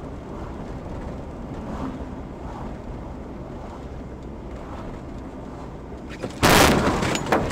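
Steady road and engine noise heard from inside a moving car, then near the end a sudden loud crash of a car-to-car collision lasting about half a second, followed by a shorter second bang.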